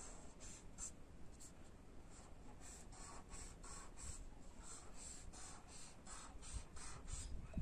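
Felt-tip marker drawing strokes on paper: faint, quick scratching strokes, about three or four a second.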